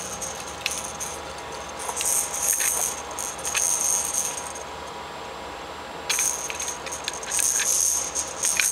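Baby's hanging play-gym rattle toy jingling in short bursts as the baby grabs and shakes it. It goes quiet for a second or so past the middle, then jingles more steadily near the end.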